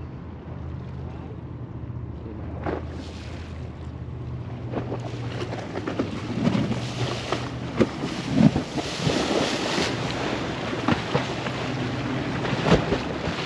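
Water sloshing and splashing at the shore, with wind on the microphone and the low drone of a boat engine that fades out about halfway through. The splashing grows stronger after the first few seconds, with several sharp splashes near the end.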